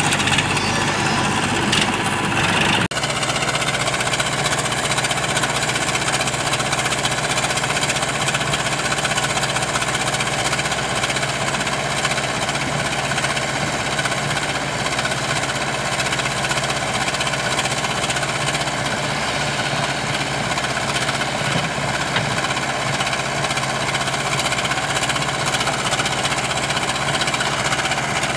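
JCB backhoe loader's diesel engine running steadily, its sound changing abruptly about three seconds in.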